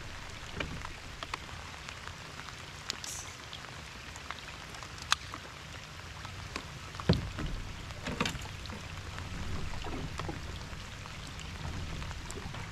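Steady rain falling, with scattered sharp clicks and a few louder knocks, the loudest about five seconds in and again around seven to eight seconds.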